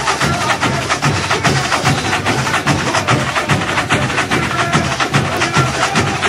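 A samba school bateria plays the samba-enredo beat: surdo bass drums beat about twice a second under a dense, steady patter of snare and small-drum strokes.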